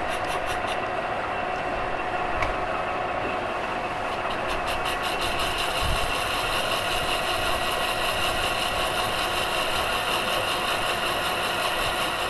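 Large engine lathe running with a bronze blank spinning in the chuck while a single-point tool takes a facing cut on it: a steady machine hum with a high-pitched cutting tone that grows stronger about five seconds in.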